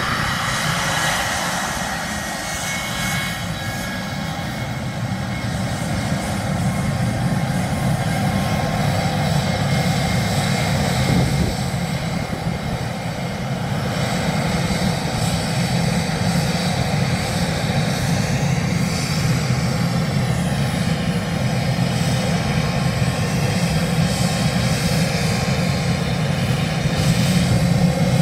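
Boeing 717 jet airliner's twin rear-mounted Rolls-Royce BR715 turbofans running steadily as it taxis and turns onto the runway: a constant rumble under a high whine, growing a little louder near the end.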